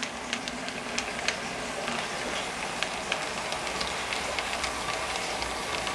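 A pair of model Alco road-switcher diesel locomotives running along the yard track: a steady rumbling hiss with scattered light clicks.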